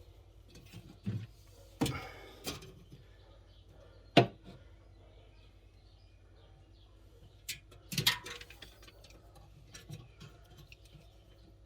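A few scattered knocks and clicks of handling and work noise, the sharpest about four seconds in, over a low steady hum.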